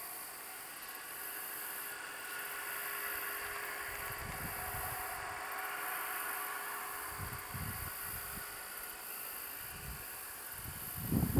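Union Pacific 844, a 4-8-4 steam locomotive, working its train at a distance: a steady rumble and hiss that swells toward the middle, with a few dull low thumps from about four seconds in.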